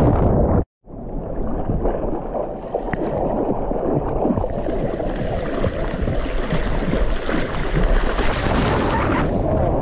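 Water splashing and rushing around a paddling surfboard, close to the board-mounted camera's microphone, with wind noise. The sound drops out for a moment just under a second in, and from about four seconds in a brighter hiss of spray off the board's nose builds until just before the end.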